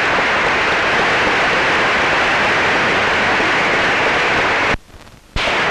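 A large hall audience applauding, a dense, steady clatter of many hands clapping. It cuts off abruptly near the end, then returns briefly.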